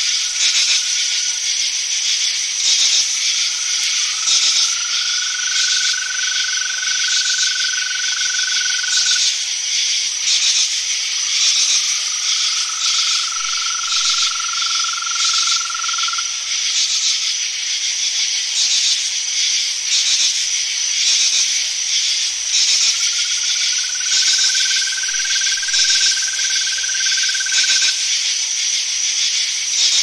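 Crickets chirping in a dense, continuous high-pitched chorus of fast pulsing chirps, from an evening nature recording. A lower, steady trill fades in and out beneath it four times, each lasting about five seconds.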